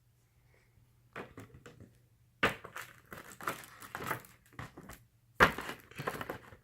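Paper and card packaging being handled and crinkled: a series of irregular rustles and crackles, with louder crunches about two and a half and five and a half seconds in.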